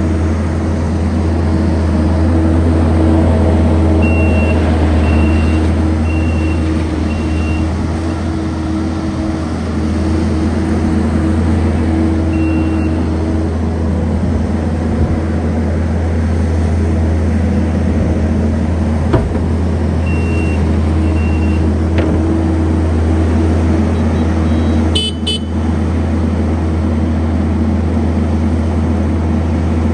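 Kubota SVL75-2 compact track loader's diesel engine running steadily under work, with its backup alarm beeping in short runs of about two beeps a second as it reverses. A brief clatter sounds about 25 seconds in.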